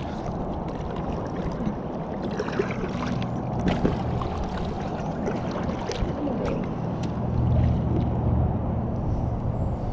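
Kayak paddles pushing and splashing in shallow, muddy water, with a few sharp knocks, as an inflatable tandem kayak grounded on a sandbar is worked free.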